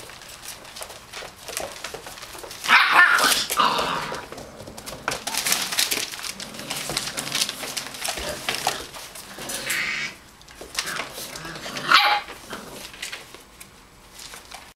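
Labradoodle puppies, about seven weeks old, barking and yipping on and off, with the loudest barks about three seconds in and again near twelve seconds.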